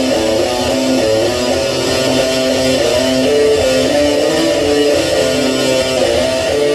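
Electric guitar played with a pick: a melodic line of notes changing about four times a second, over steady low-end rumble.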